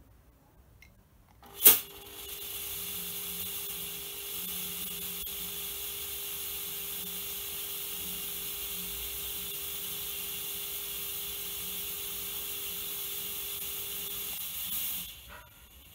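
BeamZ S700-LED fog machine firing fog through a perforated tube. A sharp click comes near two seconds in, then a steady hiss with a steady hum runs for about thirteen seconds and cuts off shortly before the end.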